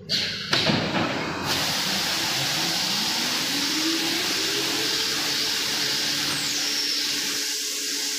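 Automatic tape slitting machine running with a steady hiss, its drive motor tone rising in pitch over about three seconds as it speeds up, then holding steady. A couple of knocks come within the first second.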